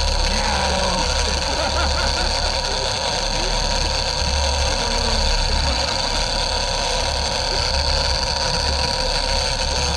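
Sportfishing boat's engine running steadily, with a constant low rumble and a steady whine above it.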